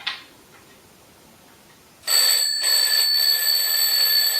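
A small knock, then about two seconds in a bell alarm clock starts ringing loudly and continuously, a steady metallic bell ring with a rattle, as the spirits' answer in the trick.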